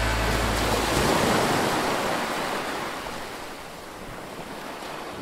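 Ocean surf washing over a rocky shore, one wave surging about a second in and then slowly fading away. The last low notes of music die out in the first second.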